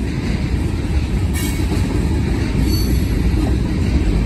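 Freight train of open-top trash cars rolling past: a steady low rumble of steel wheels on the rails, with a sharp click about a second and a half in and a short faint high squeal near three seconds. The wheels run smoothly, with little flat-spot pounding.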